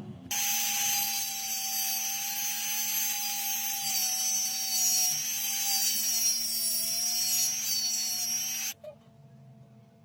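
A small electric power tool runs steadily for about eight seconds, its pitch wavering slightly, then cuts off suddenly.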